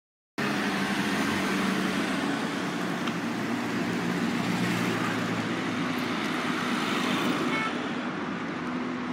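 Road traffic on a city street: car engines running and cars driving past in a steady wash of noise, cutting in abruptly just after the start.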